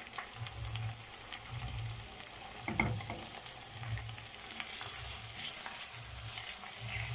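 Onion, tomato and spice masala sizzling in hot oil in a wok while a spatula adds green chillies and stirs it. A brief clatter comes about three seconds in.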